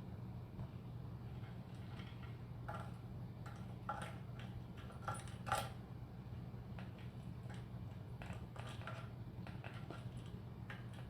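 Small metal parts being handled, giving light clicks and taps with a cluster of sharper ones around four to six seconds in, over a steady low hum.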